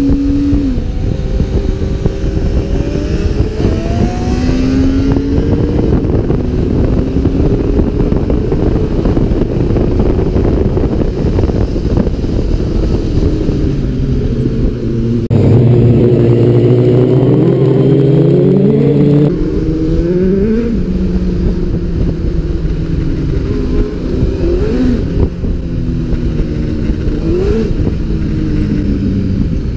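Honda CB600F Hornet's inline-four engine under way, revving up and easing off again and again as it pulls through the gears, over road and wind noise. About halfway through there is a louder, steadier stretch of a few seconds.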